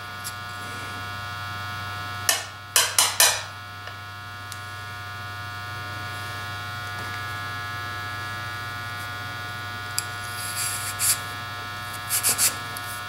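Metal parts of a Coleman stove generator tube being handled as its tip is unscrewed: a quick run of four short scrapes about two seconds in, and a few lighter ones near the end. Under them is a steady electrical hum of several even tones.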